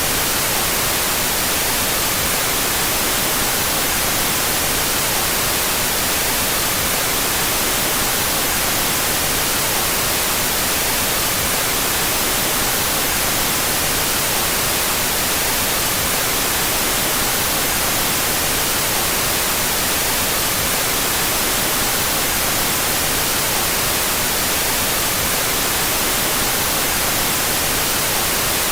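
Steady electronically generated white noise, an even hiss with no change, its stereo channels played out of phase with each other.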